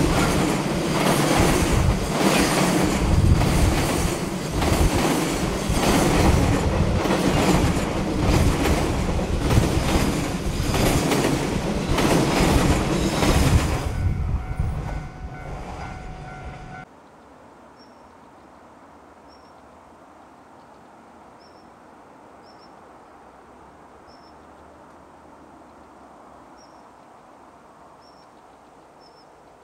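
A long freight train of Koki container flat wagons rolling past on the steep grade, its wheels clacking over the rail joints in a steady rhythm. After about 14 seconds the last wagons pass and a few faint steady tones fade out. The sound then cuts off suddenly to quiet outdoor ambience with small high chirps repeating about once a second.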